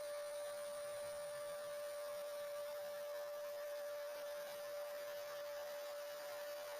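Spindle of a home-built CNC router running with a steady, unchanging whine over a soft hiss.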